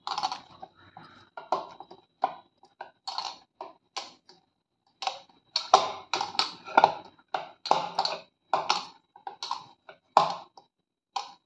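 Hands kneading a ball of stiff maida dough in a bowl: irregular soft slaps and squishes as it is pressed and turned, two or three a second.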